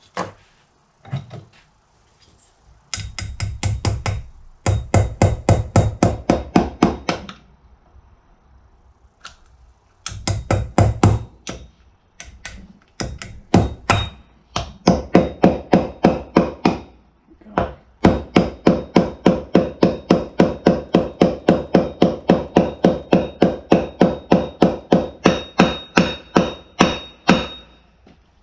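Hammer tapping a dust boot into a Scag mower's front caster, many quick metal-on-metal taps with a ringing tone. They come in several runs of about four taps a second, the longest over the last ten seconds.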